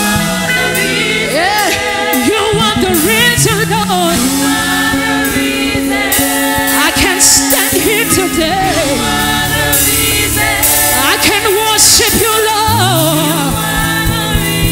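Live gospel praise music: singers and a choir over a band, with long held low notes that shift pitch every few seconds.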